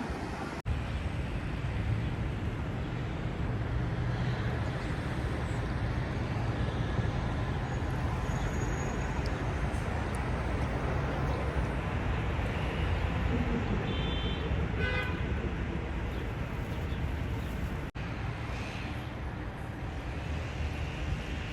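City street traffic: a steady rumble of passing vehicles, with a brief high-pitched toot about fourteen seconds in.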